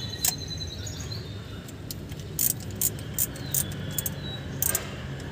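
Small socket ratchet clicking in short, scattered runs as it snugs the bolts of a new water pump on a Kia Bongo JT engine, under a low steady hum and faint high chirping tones.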